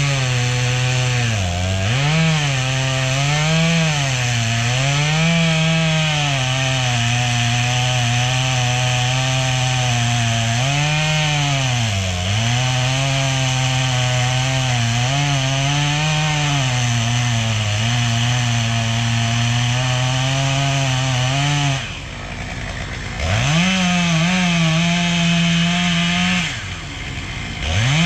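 Chainsaw cutting into a black walnut trunk, its engine pitch wavering and dipping as it loads up in the cut. About 22 seconds in it drops back briefly, then runs at a higher, steadier pitch, with a couple of short revs near the end.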